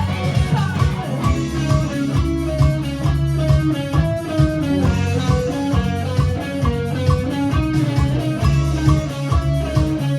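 Live indie rock band playing an instrumental passage: electric guitar picking quick repeating notes over bass and a steady drum beat.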